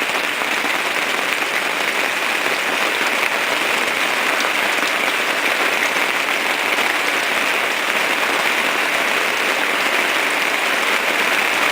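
Rain falling steadily, an even hiss of drops with no let-up.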